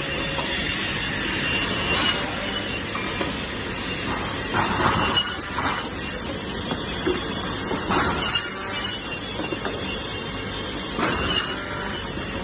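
Firewood cutting machine running with a continuous mechanical din, with louder surges about every three seconds.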